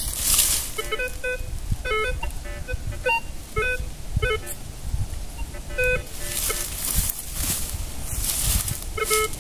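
Minelab Vanquish 540 metal detector giving rapid, irregular short beeps in several pitches as its coil sweeps ground full of metal targets, mostly junk. The beeps stop for a few seconds after about six seconds in, then start again, with a rustling hiss coming and going underneath.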